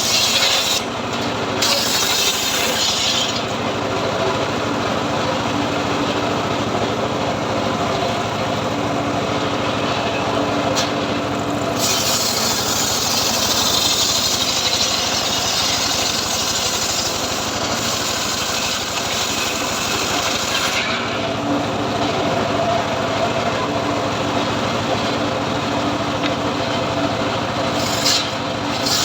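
Homemade engine-driven sawmill ripping teak wood: the engine runs steadily while the saw's cutting noise comes and goes, loudest in the first few seconds, again from about twelve to twenty-one seconds in, and briefly near the end.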